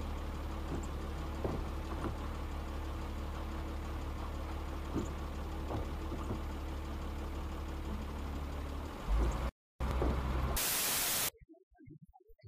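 Car cabin noise recorded by a dashcam on a rain-wet highway: a steady low road and engine rumble with a few faint knocks. About nine seconds in comes a short loud thump and a brief dropout, then a loud burst of hiss lasting under a second, after which the sound cuts away almost to silence.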